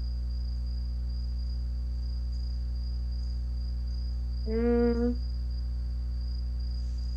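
A steady low electrical hum with a thin, constant high-pitched tone over it. About four and a half seconds in, a girl gives one short hummed "hmm" while thinking.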